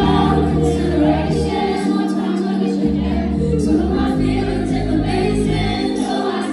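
Live pop band performance recorded from the audience at a concert: a woman singing with electric guitar, bass and band through the PA, with many voices, the crowd's, singing along.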